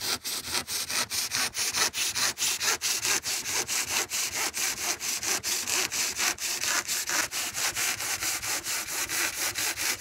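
Handsaw cutting through a thick foil-faced rigid foam insulation board, with fast, even back-and-forth strokes and a dry rasping hiss on each stroke.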